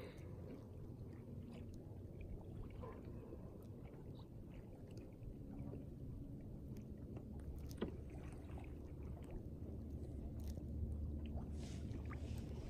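Canoe being paddled on calm water, faint: water lapping and swishing against the hull, with a few light knocks, one clearer about eight seconds in.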